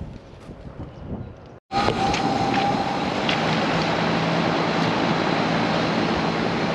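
A few light handling clicks, then about two seconds in the sound cuts to a central air-conditioner outdoor condensing unit running: the condenser fan gives a steady rush of air, and a low compressor hum joins it about three seconds in. The start was smooth and normal, at 57 amps of startup current.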